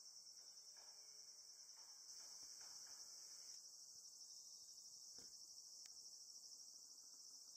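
Steady, high-pitched trilling of singing insects in the background, like a cricket chorus, with a faint click or two about five seconds in.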